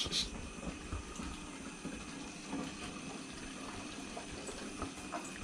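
Water running in a steady low trickle, with a brief hissy spatter right at the start.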